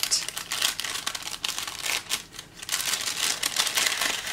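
Translucent paper gift bag crinkling and rustling as hands peel off its sticker seal and unfold it open. The crackling is continuous, with a brief lull about two seconds in.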